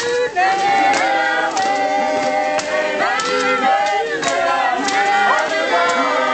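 Background music: a choir of voices singing together, with sharp percussive strikes throughout.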